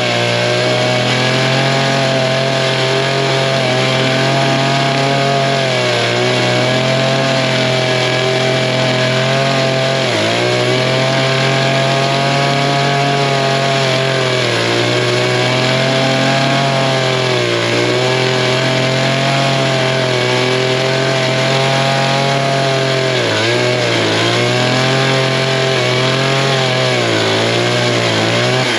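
Chainsaw-driven walk-behind brush cutter's small gas engine running at high speed as its chain cuts through dry reeds and rough ground. The engine's pitch dips briefly about five times, then comes back up.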